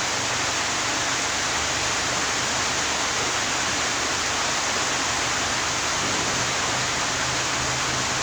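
Steady, even hiss with no breaks or knocks, and a faint low hum beneath it.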